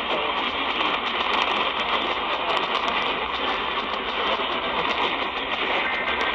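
Radio static: a steady hiss of noise from a weak or poorly tuned broadcast signal, with a faint steady high tone running through it.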